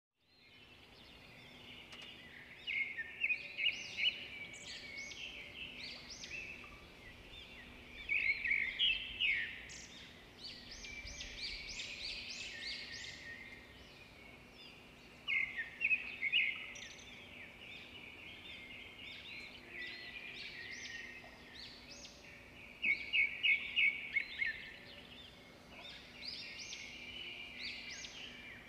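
Small birds chirping in bursts of rapid, high chirps and quick whistles, over a faint steady low hum.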